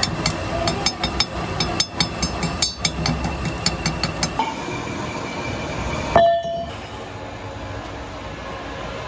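A steel rod striking a freshly welded joint on a PTO shaft tube, chipping off the slag in quick, irregular metallic clinks for about four seconds. About six seconds in comes one loud metal clank that rings briefly, and then the steady hum of workshop machinery.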